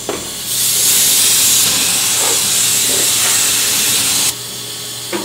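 Handheld compressed-air blow gun blasting a steady, loud hiss into a CNC mill enclosure to blow metal chips off the vise. The hiss starts about half a second in and cuts off suddenly after about four seconds.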